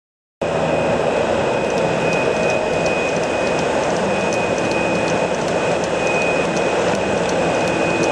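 Cessna 182's engine and propeller running steadily on approach, heard from inside the cabin: a loud even drone with a faint steady high whine and light rapid ticking. It cuts in suddenly about half a second in.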